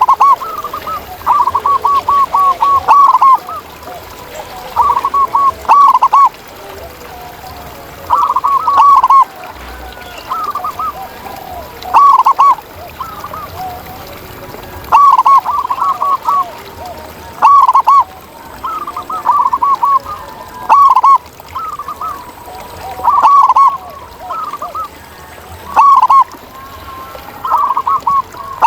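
Zebra dove (perkutut) singing: short phrases of quick, clipped cooing notes, repeated every two to three seconds.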